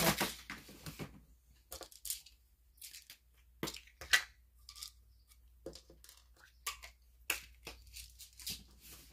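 Pill bottles and medicine packets being handled: scattered short crackles, clicks and rustles, the loudest about four seconds in.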